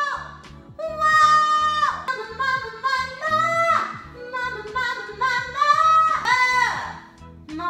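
A woman belting a vocal warm-up: a run of loud, held high notes, several of them sliding down in pitch at the end.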